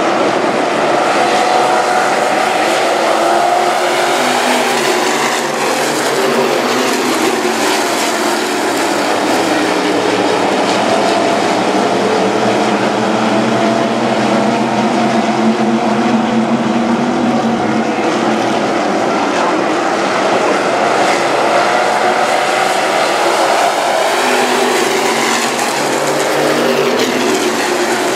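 Several IMCA stock cars' V8 engines racing together, loud and continuous, their pitch rising and falling as the cars accelerate out of the turns and back off into them.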